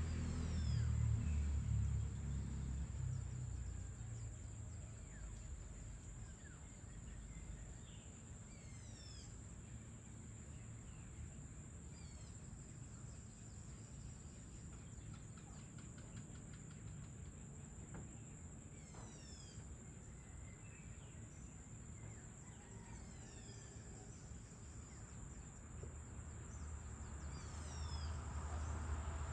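Evening ambience of a steady high-pitched insect drone, like crickets, with short descending bird chirps coming every few seconds, sometimes several in quick succession. A low rumble fades out over the first few seconds and builds again near the end.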